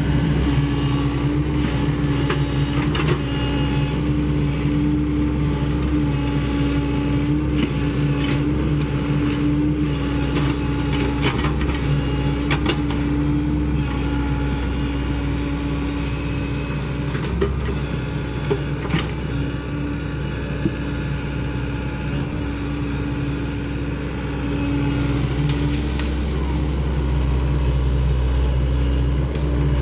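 Sany SY75 excavator's diesel engine running steadily, with scattered short knocks in the middle stretch and the engine getting a little louder near the end.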